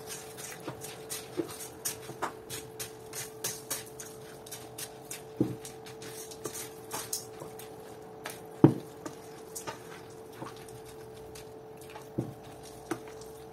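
Wooden spoon stirring wetted coarse tapioca in a stainless steel bowl: a run of quick light scrapes and clicks, with three louder knocks of the spoon against the bowl, over a steady faint hum.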